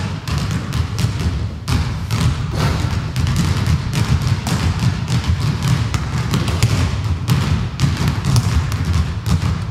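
Several basketballs being dribbled at once on a hardwood gym floor, a dense, irregular stream of bounces with no pause, including a player dribbling two balls at a time.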